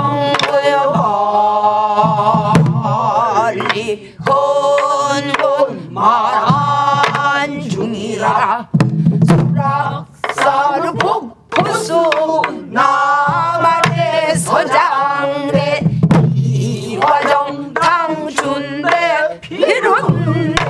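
Danga sung in pansori style by several voices with wide, wavering vibrato, over irregular strokes on buk barrel drums struck with a stick and the palm.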